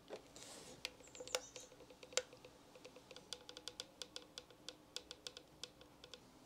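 Caulking gun clicking quietly while a bead of silicone sealant is squeezed out around a plastic duct joint. A few scattered clicks, then a quick run of light clicks, several a second, in the second half.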